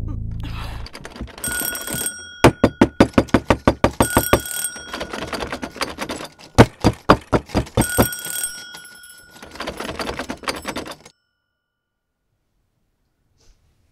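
Mechanical bell ringing: a clapper striking rapidly in several bursts, with a high ringing tone, cutting off suddenly about eleven seconds in.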